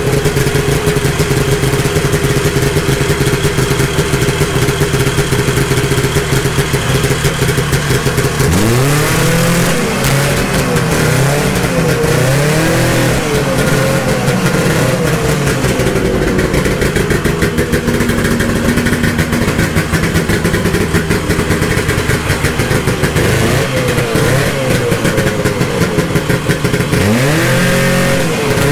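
1972 Ski-Doo Nordic 440's two-stroke engine running, warming up after a cold start, now that its fuel pump is pumping again. It idles steadily for about eight seconds, then the throttle is blipped repeatedly, so the engine note rises and falls over and over, and there is a second round of revving near the end.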